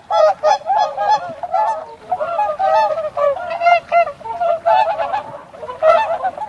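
A flock of swans calling, a rapid, overlapping series of short nasal honks.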